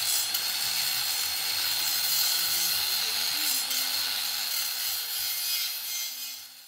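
Electric angle grinder with an abrasive disc grinding down a MIG weld seam on galvanized hollow steel tube: a steady gritty grinding noise with a high motor whine, dying away near the end.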